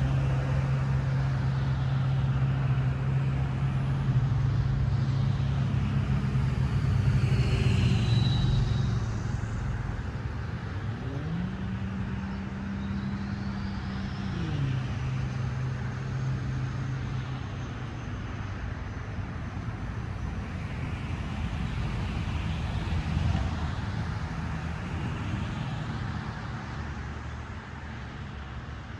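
Road traffic: motor vehicles passing one after another over a steady low hum, with an engine note that rises, holds and falls again about halfway through.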